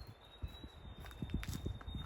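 Footsteps of a walker on a forest trail: a run of dull, low thuds. A thin, steady high tone, like an insect or a held bird note, sounds faintly behind them.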